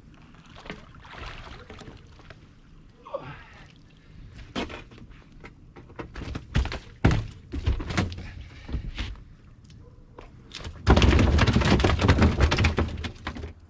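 Scattered knocks and thuds as a person moves and handles gear on a boat's bow deck, clustering in the middle. Near the end comes a louder rough noise lasting about two and a half seconds.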